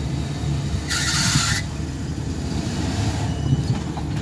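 Full-size Ford Bronco's engine running steadily at low revs as the truck crawls over a pile of logs. About a second in there is a short, high hiss.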